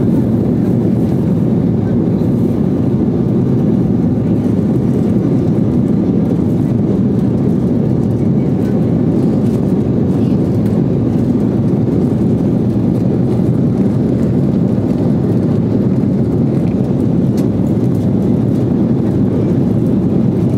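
Steady cabin noise of an Embraer 195 in flight, heard inside the cabin: a constant low rumble of the jet engines and airflow over the fuselage, without change in level.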